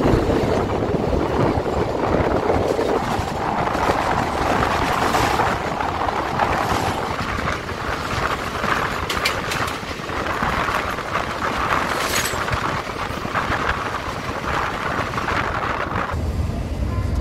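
Steady running noise of a passenger train in motion, heard from on board, with a few sharp clicks around the middle. The noise cuts off suddenly near the end.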